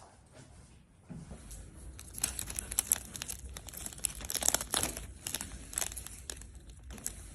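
Crinkly material being handled and crumpled, with many irregular sharp crackles starting about a second in.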